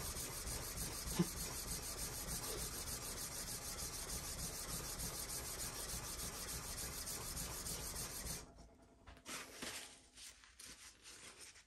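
Steel plane iron rubbed back and forth on a coarse sharpening plate, a steady gritty scraping: the back of a new blade being lapped flat to remove the factory grind marks. The scraping stops about eight seconds in, followed by faint rustling as the blade is wiped with a cloth.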